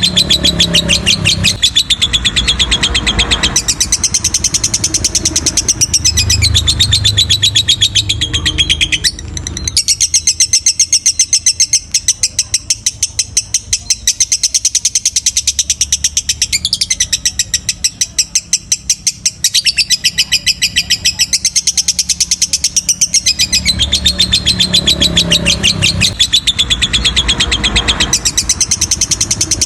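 Lovebird giving a long, unbroken, rapid chattering song (the 'ngekek' prized in long-duration lovebirds), with one short break about nine seconds in.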